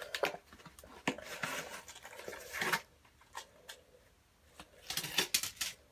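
Handling noise from unboxing: scattered light clicks and rustling as the knife's case and packaging are moved about.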